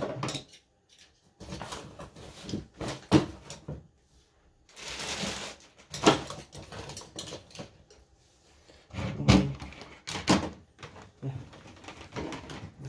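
Handling noises: a string of knocks and clicks as things are moved about in a fabric bag and on a tabletop, with a rustling scrape about five seconds in and the loudest knocks around nine to ten seconds.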